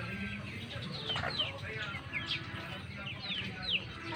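Backyard chickens clucking and chirping, with a run of short, high-pitched chirps that fall in pitch, repeated several times.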